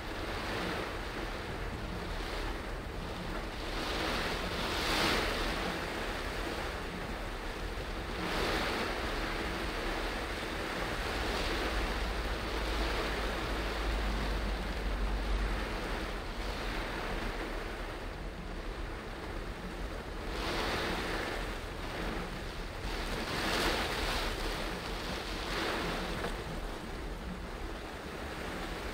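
Steady wash of rain and tyres on a wet road, heard inside a moving car, swelling now and then every few seconds under a low road rumble.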